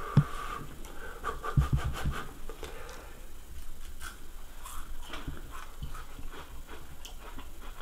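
A person eating a hot piece of fried carp: irregular chewing sounds with quick breaths in and out through the mouth.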